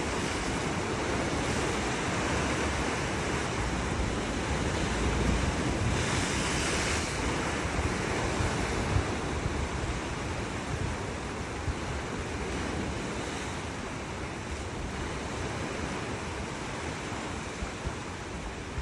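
Sea surf washing continuously onto the shore, a steady rushing hiss with one wave breaking more strongly about six seconds in. Wind buffets the microphone with a low, uneven rumble underneath.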